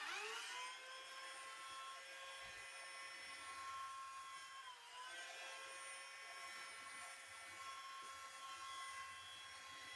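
Faint whine of a small electric motor, rising in pitch as it spins up at the start, then running steadily with a brief dip in pitch about halfway through.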